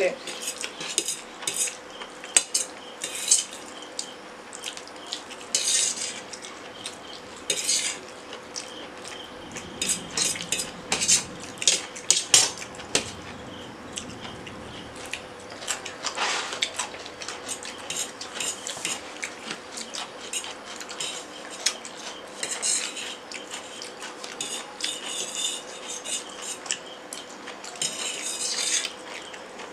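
Metal forks clinking and scraping against stainless steel plates as noodles are picked up and eaten, in irregular taps and scrapes.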